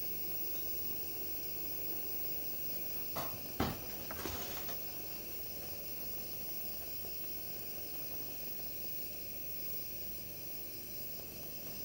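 Coleman 220K white-gas pressure lantern burning with a steady hiss. A few short knocks or clicks come about three to four and a half seconds in.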